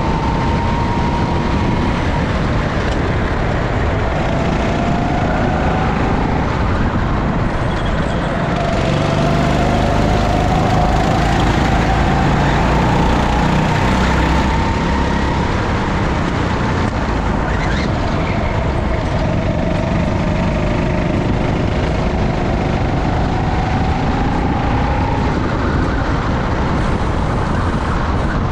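Go-kart engine heard from the kart itself, its note climbing slowly down the straight and dipping several times, over heavy wind rumble on the microphone.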